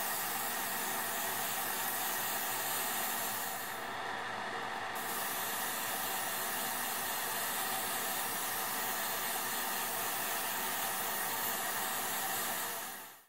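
Airbrush spraying dark green paint onto a scale-model camouflage net: a steady hiss of air and paint mist, briefly softer about four seconds in, stopping abruptly near the end.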